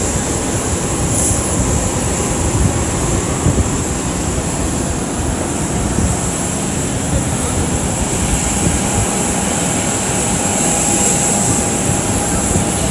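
Steady jet-aircraft whine and rumble on an airport apron, a constant high whine over a rough low rumble, with wind buffeting the microphone.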